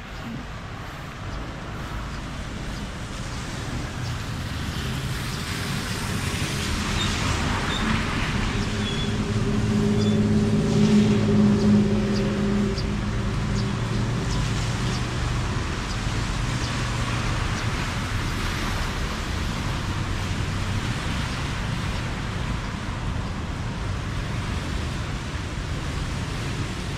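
Road traffic on a wet street: a motor vehicle passes, its engine hum and tyre hiss building to a peak about ten to twelve seconds in and then fading back into steady traffic noise.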